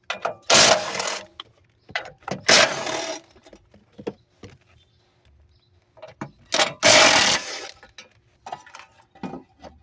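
A power tool runs in three short bursts, about a second each, loosening the bolts that hold a starter motor. Small clicks and knocks of tool handling come between the bursts.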